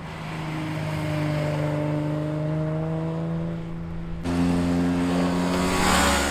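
Sport motorcycles riding past on a canyon road: a steady engine note swells over the first few seconds, then a louder bike passes, peaking near the end and falling away.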